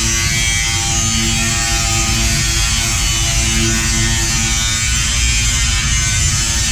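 Handheld angle grinder running steadily against the steel of a car body, with a whine over a hiss as it throws sparks.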